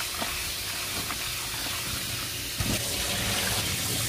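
Kitchen tap running into a stainless-steel sink, the stream splashing over okra being rubbed clean in a bowl and over a tray rinsed under it. A knock about two and a half seconds in, after which the water sounds heavier.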